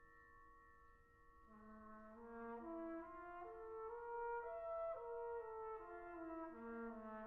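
A British-style brass band playing: a few held ringing tones, then brass enters about a second and a half in with slow, overlapping sustained notes that grow steadily louder.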